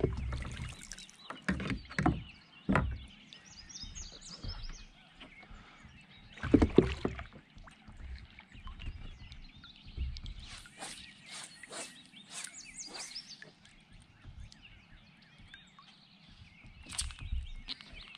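Kayak paddle handling: scattered knocks and water splashes as a paddle is dipped and set against a plastic kayak hull. The loudest comes about six and a half seconds in, with a run of lighter taps later.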